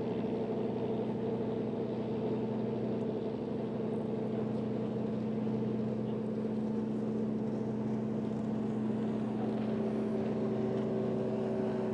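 A river barge's engine running with a steady drone.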